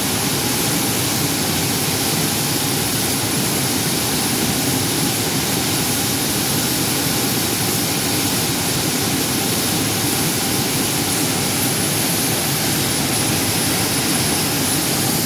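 Steady, even industrial roar of a hot steel tube rolling mill's machinery running, with no distinct knocks or bangs and a faint thin high whine above it.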